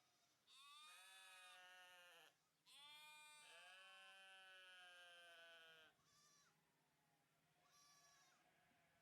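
Sheep bleating: two long, wavering bleats one after the other, then two shorter, fainter ones.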